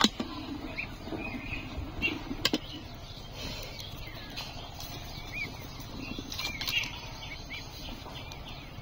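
Rice and water boiling in an aluminium pot over a wood fire, a low steady rumble with a few sharp clicks of the steel spoon against the pot. Small birds chirp now and then in the background.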